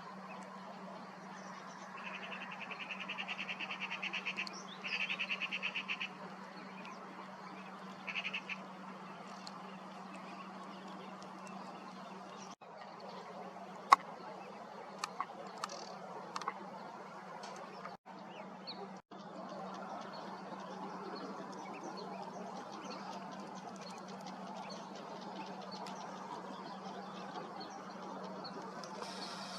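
Lake birds calling: a rapid trilled call comes twice a few seconds in and once more briefly, over a steady background murmur. A single sharp click is heard about halfway through.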